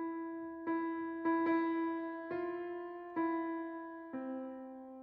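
Background music: a slow keyboard melody of single notes, about one a second, each ringing and fading out.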